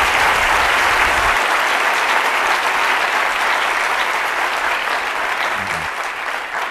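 Large audience applauding, a dense steady clapping that gradually dies down.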